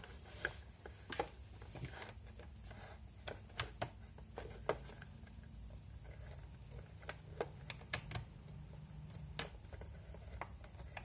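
Small clicks and taps of a plastic USB connector and cable being handled on a wooden desk, about a dozen scattered light knocks, over a faint low hum.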